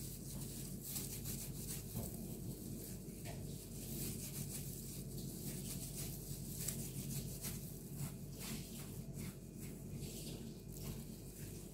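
Disposable plastic gloves rustling and rubbing as hands shape mashed-potato croquettes and roll them in breadcrumbs: soft, irregular brushing sounds over a steady low hum.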